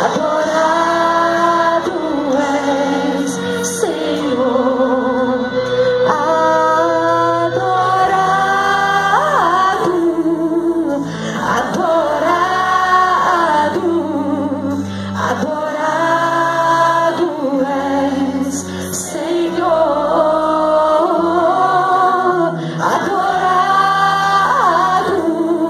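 A woman singing a Christian worship song through a microphone and PA, in long held notes that bend and swell, over instrumental accompaniment with steady bass notes.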